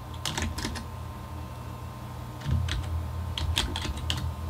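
Computer keyboard keystrokes: a handful of separate clicks in short irregular runs as a word is typed, over a low steady hum.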